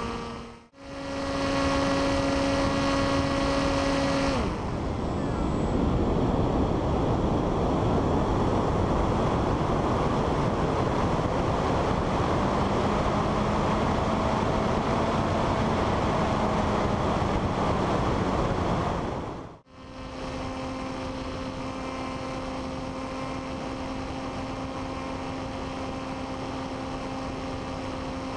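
Onboard sound of an FPV model aircraft: the electric motor and propeller give a steady drone, and about four seconds in this gives way to a louder rush of air over the microphone for about fifteen seconds. After a brief dropout the steady motor drone returns, a little quieter.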